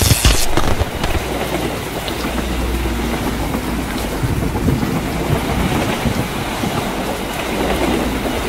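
Steady heavy rain with a crack of thunder in the first half-second, then a low rumble under the rain.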